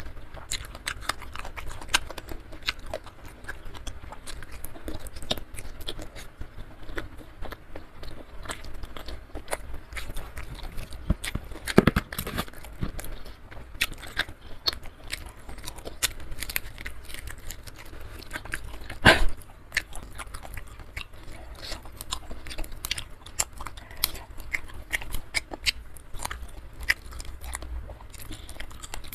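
Close-up eating sounds of a person chewing and biting a meal of rice with sambal, jengkol and fried salted sepat fish: wet mouth clicks and crunches all through, with two louder bursts about twelve and nineteen seconds in.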